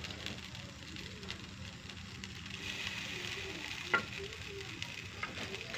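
Fried rice sizzling in a large metal wok while it is stirred, with scattered light scrapes and clicks of a utensil on the pan and one sharp knock about four seconds in.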